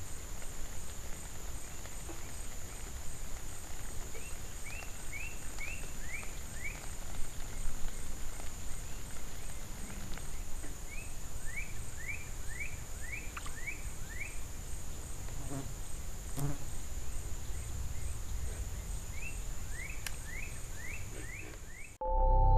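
Swamp ambience: a steady high-pitched insect drone over a low even hiss. Three bouts of about six quick falling chirps each come from an animal. Ambient music cuts in right at the end.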